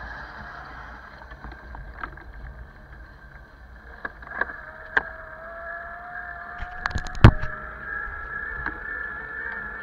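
A bicycle rolling along a rough asphalt road, with a steady high whine and a few sharp knocks and rattles as it goes over bumps. The loudest clatter comes about seven seconds in.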